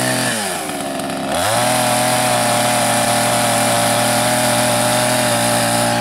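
Two-stroke petrol chainsaw running at high revs while cutting a round off a log. Its pitch dips sharply about half a second in, climbs back within a second, then holds steady.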